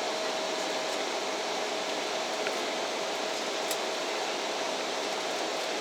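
Jet airliner cabin noise in flight: a steady, even roar of engines and airflow with a faint steady tone running through it.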